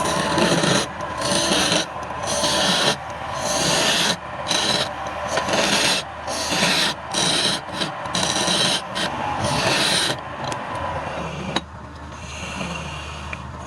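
Wood being worked on a running woodturning lathe: a hand-held tool rasping against the spinning piece in short repeated passes, roughly one every half second to second, over the steady hum of the lathe motor. The passes stop about two seconds before the end after a sharp click, leaving the motor running alone.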